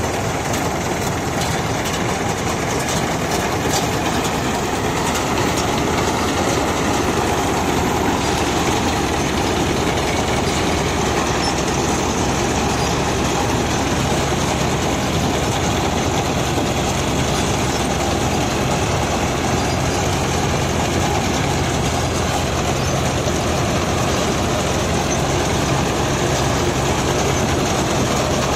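Mahindra Arjun Novo tractor-mounted combine harvester, engine and harvesting machinery running steadily under load as it cuts and threshes a standing millet crop.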